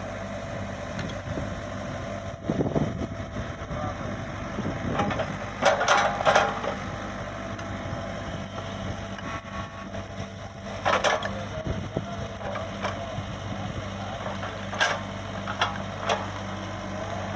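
Komatsu PC75UU excavator's diesel engine running steadily, with short louder bursts of sound now and then.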